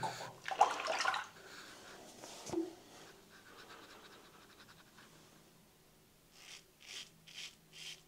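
King C Gillette double-edge safety razor scraping through lathered stubble in short strokes, about two a second, starting in the last couple of seconds, on a with-the-grain pass. A brief splash of water comes about half a second in.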